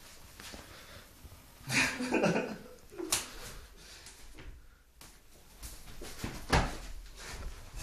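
A series of irregular knocks and bumps. There is a louder, busier patch of them about two seconds in, and single sharp knocks about three seconds in and again near six and a half seconds.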